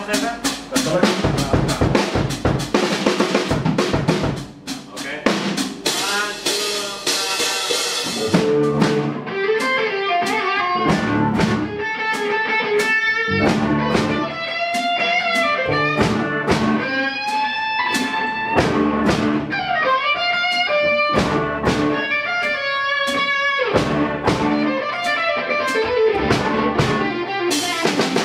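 Live band jam: a drum kit played busily with cymbals for about eight seconds, then the full band with drums, bass, electric guitars and keyboard, a clear melody line running over the beat.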